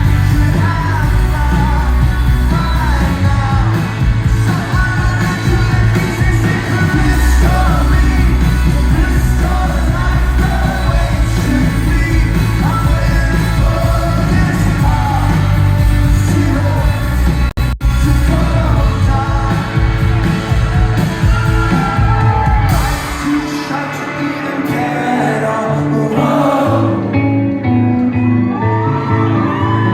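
Live rock band playing with a lead singer. The bass and drums drop out about three-quarters of the way through, leaving the voice over lighter instruments, and the low end partly returns near the end.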